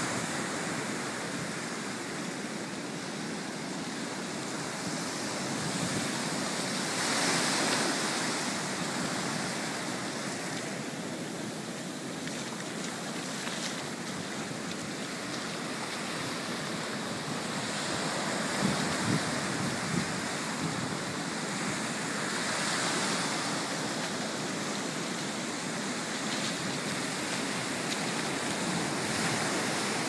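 Choppy surf breaking and washing up a sandy beach in a steady rush, swelling louder twice as bigger waves wash in.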